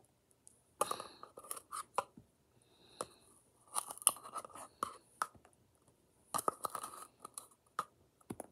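Scissors scraping kinetic sand out of a small plastic tub: irregular scrapes and clicks of the blades against the container's sides, with the crunch of the sand.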